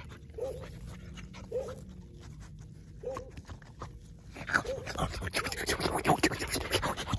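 A dog right up against the microphone in the second half: loud, crackly sniffing, panting and rustling as its head is petted. Earlier there are a few short, faint calls about a second apart.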